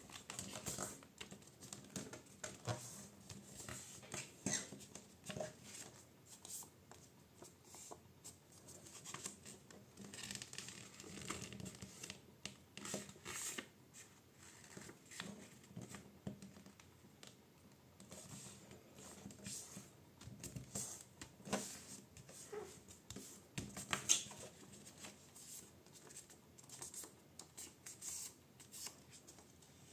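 A sheet of printer paper being folded and creased by hand: irregular rustling and crinkling as the paper is turned and fingers press and run along the folds. There are a few sharper crackles about two-thirds of the way through.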